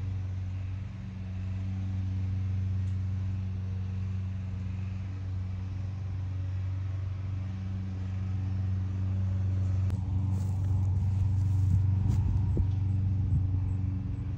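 Steady low hum of an idling engine, with scattered clicks and rustling from about ten seconds in.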